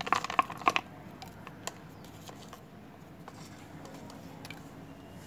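Sticky slime being stirred with a plastic straw in a thin plastic cup: a quick run of clicks and crackles in the first second, one more click a little later, then only faint room tone.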